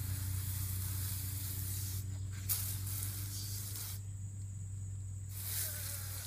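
Garden hose spray nozzle hissing as it sprays water onto a dog's coat, in three spells broken by two short pauses, about two seconds and a little over a second in. A steady low hum runs underneath.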